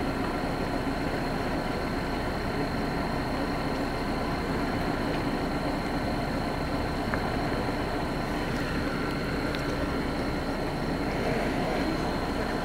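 A steady engine-like rumble at idle, unchanging throughout, with a thin high steady tone above it.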